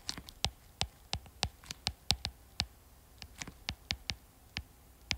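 Stylus tip tapping and stroking on a tablet's glass screen while handwriting Japanese characters: a string of sharp, irregular clicks, some in quick clusters.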